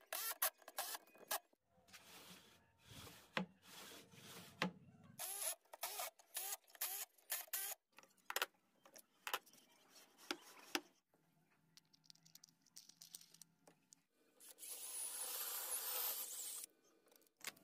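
Workshop handling sounds: a string of sharp taps and clicks with some rubbing, then a steady hiss for about two seconds near the end.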